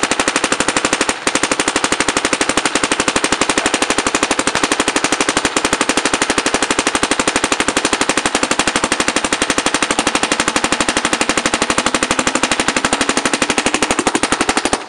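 Dye NT paintball marker, on a 48/45 compressed-air tank, firing a continuous rapid, even string of shots, with a brief break about a second in.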